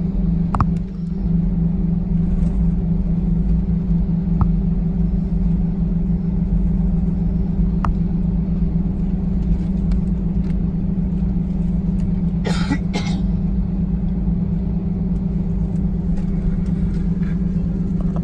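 Steady cabin hum of an Airbus A320neo taxiing, its engines at low power, heard from inside the cabin by the wing, with a low droning tone throughout. A few light clicks and a brief rustle about two-thirds of the way through.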